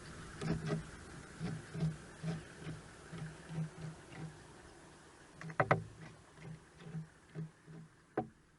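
Cardinal woodpecker pecking at a wooden gum pole: irregular dull taps at about two a second, with a louder cluster of sharp knocks about halfway through and another near the end. It is probing and chiselling at holes for grubs and beetle larvae.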